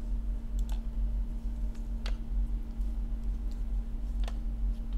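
Workshop room tone: a steady low hum and rumble, with four or five faint sharp clicks scattered through it.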